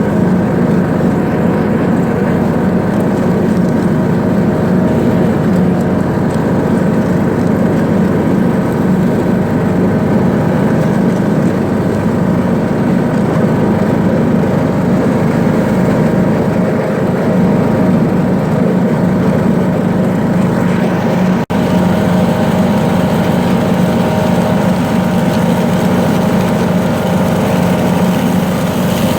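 John Deere D105 riding lawn mower's single-cylinder engine running steadily at mowing speed, with one momentary dropout about two-thirds of the way through.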